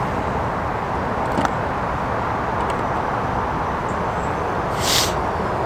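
Steady outdoor rumble and hiss, with a single click about one and a half seconds in and a short rustle near the end.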